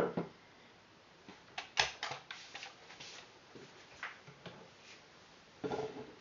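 Parts of a GHK AK gas blowback airsoft rifle being handled: irregular sharp clicks and clacks, a cluster of them about two seconds in and another near the end.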